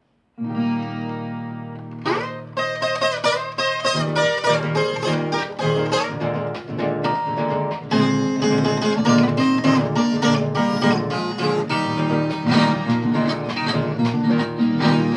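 Viola caipira playing an instrumental introduction: an opening chord rings for about two seconds, then quick plucked melody notes run over sustained lower accompaniment.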